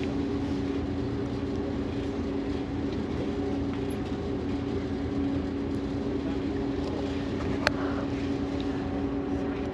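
Tour boat's engines running steadily, a constant low drone with a steady hum, heard from on deck. A single sharp click comes near the end.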